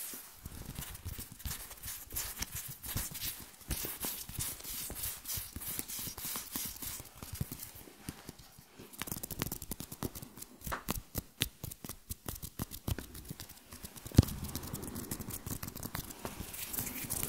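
Close-miked ASMR hand and mouth sounds: a dense run of quick crackling clicks and rustles as hands flutter, rub and cup over the mouth right at the microphone. One sharper, louder click comes about 14 seconds in, and after it the sound turns into a thicker, steadier rustle.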